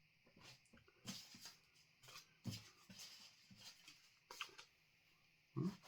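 Near silence: faint room tone with scattered soft clicks and a few brief low noises, the loudest near the end.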